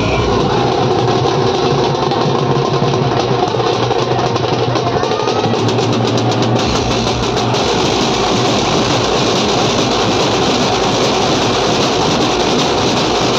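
Dhumal band playing: many large drums beaten with sticks together, loud and continuous.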